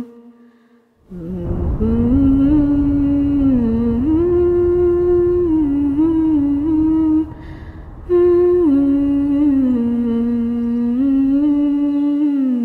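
A person humming a slow, wordless melody over a low rumble, the pitch stepping between held notes with short slides. The humming starts about a second in and breaks off briefly past the middle before going on.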